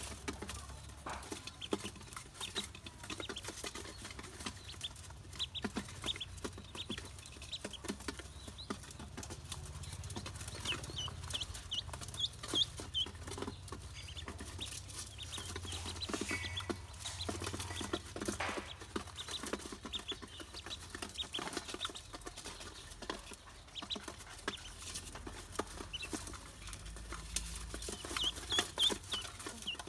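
Ducklings pecking feed from a metal basin: a constant patter of bill taps and clicks on the metal, with bursts of short high peeps about a third of the way in and again near the end.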